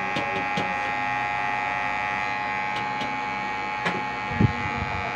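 Electric hair clipper running with a steady buzz as it is pushed up through a boy's hair at the side of the head, with a few light clicks and a low knock about four seconds in.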